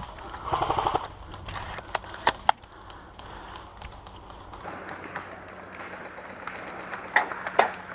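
Airsoft guns firing: a short rapid burst about half a second in, a few single shots around two seconds in, and two more sharp shots near the end.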